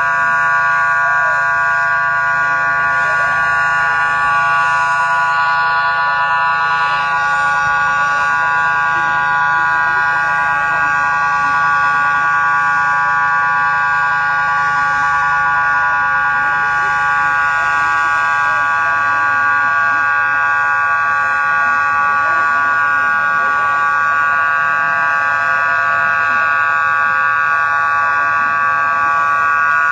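A loud, unbroken buzzing alarm tone that holds one steady pitch throughout.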